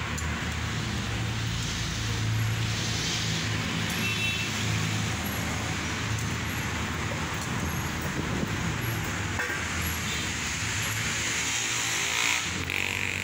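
Steady rumble and hiss of motor traffic, with no distinct knocks or strikes.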